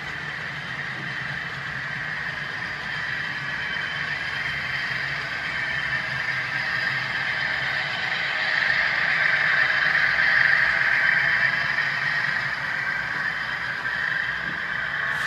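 HO scale model freight train of covered hopper cars running past on the layout's track, a steady rolling noise of small metal wheels on rail that grows louder towards the middle and eases slightly near the end.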